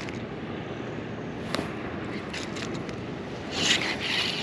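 Fishing tackle being handled close up: a few small clicks, then a louder scraping rustle near the end, over a steady low background noise.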